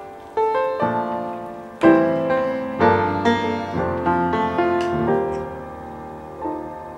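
Background piano music: a melody of struck notes and chords, growing softer near the end.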